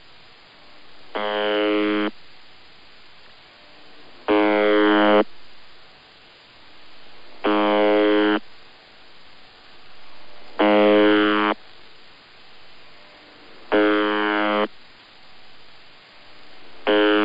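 UVB-76 ('The Buzzer') shortwave station's normal channel marker, heard through a radio receiver: a harsh buzz just under a second long, repeated about every three seconds, six times. Radio static swells and fades between the buzzes. This steady repeating buzz is the marker that holds the channel when no voice message is being sent.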